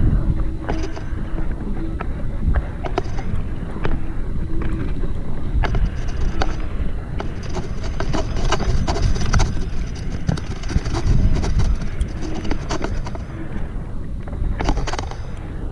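Wind noise buffeting the microphone as a mountain bike runs down a rough dirt-and-grass trail, with frequent clicks and knocks from the bike rattling over the bumps.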